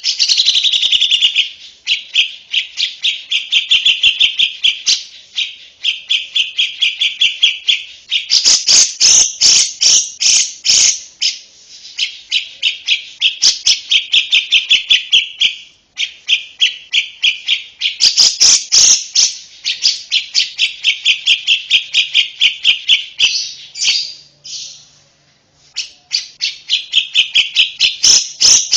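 Lovebird singing: long runs of rapid, loud, high chattering notes, strung into trills and broken by short pauses about halfway through and again near the end.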